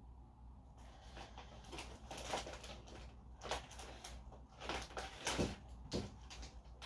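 Rummaging: an irregular run of rustles and light knocks as things are moved about and searched through, starting about a second in, with several louder crackles over the next few seconds.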